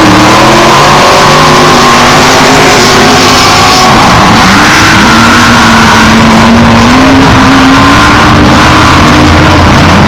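Off-road race vehicle engines at full throttle, very loud, their pitch dropping near the start and then climbing steadily over several seconds as they accelerate.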